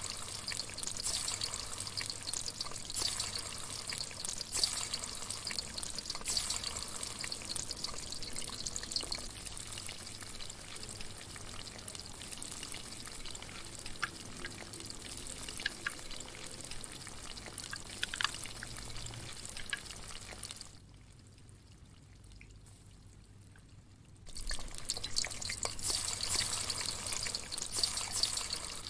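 A steady watery hiss, like pouring or sizzling, with small clicks and taps scattered through it. It drops away for about four seconds about three quarters of the way in, then comes back.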